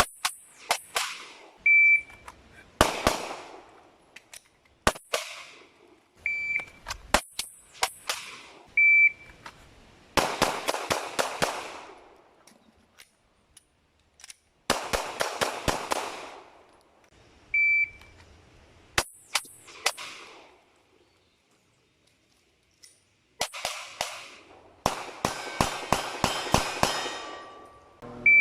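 Airsoft gun fired in repeated strings of sharp shots, some quick and rapid. Each string comes shortly after a short, high electronic beep, the start signal of a shot timer in a shooting drill.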